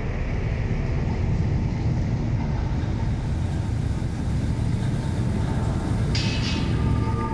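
Dark, designed factory ambience: a steady low industrial rumble, with a short hiss about six seconds in and steady high tones coming in near the end.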